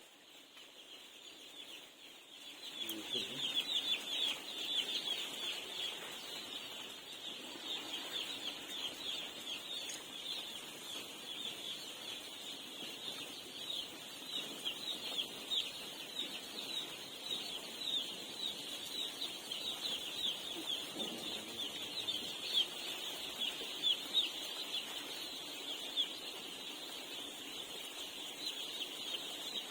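A shed full of young chickens cheeping together: a constant chorus of many short, high, falling peeps that swells in about three seconds in.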